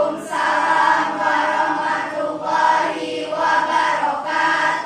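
A class of students speaking together in unison, a loud drawn-out chanted chorus of many voices in several phrases with short breaks between them.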